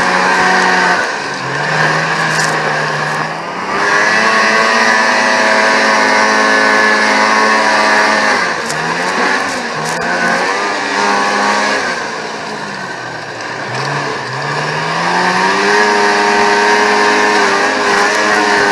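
Vintage racing snowmobiles' two-stroke engines running at high revs, the pitch dropping off and winding back up several times as the throttle is eased and opened again.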